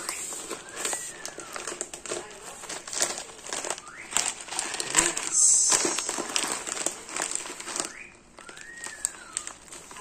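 A plastic bag of bird-food pellets crinkling and rustling as it is handled and opened, loudest about halfway through. A few short rising-and-falling whistles sound in the background near the start, the middle and the end.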